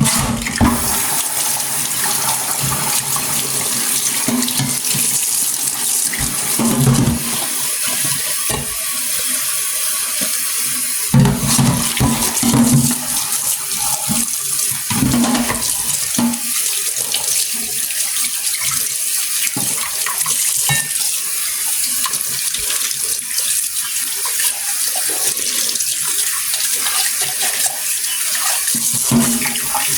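Water running from a faucet into a sink, starting suddenly and flowing steadily, with brief louder splashes now and then.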